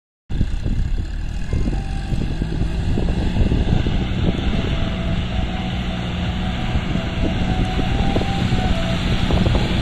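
John Deere 5305 tractor's three-cylinder diesel engine running steadily under load as it pulls a heavily overloaded trolley over soft sand.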